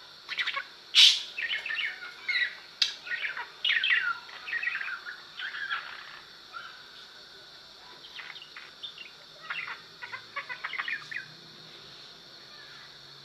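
Parrot chirping and chattering in quick runs of short high calls, with one sharp, loud squawk about a second in; the calls thin out and stop near the end.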